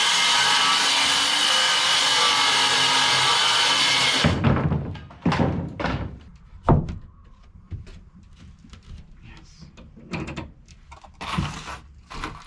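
A power tool runs steadily for about four seconds and stops abruptly, followed by several scattered knocks and thunks of wood and tools being handled.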